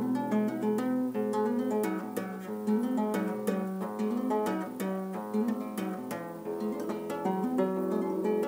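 Solo classical acoustic guitar played fingerstyle: a quick, repeating picked figure of single notes over a moving bass line, in a math-rock style.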